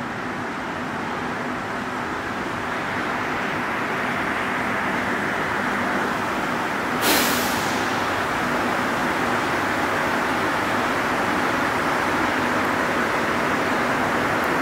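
Montréal Métro Azur (MPM-10) rubber-tyred train coming into the station: a steady running noise that grows louder as it arrives, with a sudden sharp burst of noise about seven seconds in.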